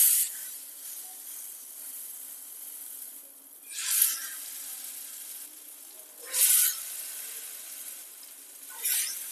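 Hot oil in a frying pan sizzling as portions of banana-stem fritter batter are dropped in, each one setting off a loud burst of sizzle, four times about every two to three seconds, over a steady frying hiss.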